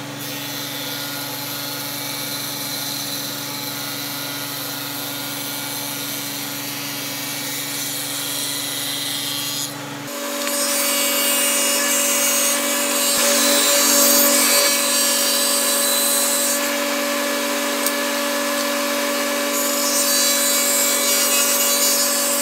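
Table saw running with a dado blade stack, cutting a rabbet along the edge of oak picture-frame pieces. The sound shifts and gets louder about ten seconds in.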